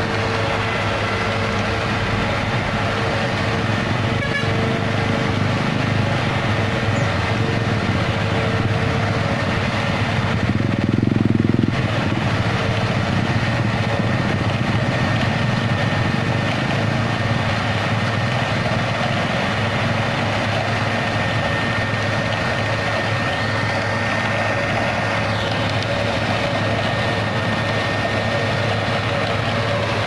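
Concrete mixer truck's diesel engine running steadily with a constant hum while the drum turns to discharge concrete down the chute. About eleven seconds in there is a brief, louder, lower-pitched swell.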